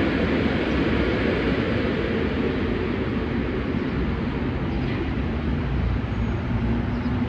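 MacNeil Tech 21 car-wash dryers running: a steady, loud rush of blown air over a low hum.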